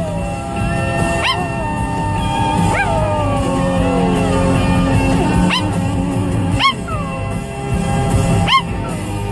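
Maltese dog howling along to a country song on the car radio: about five short yelping howls over the music, each jumping up in pitch and then sliding down.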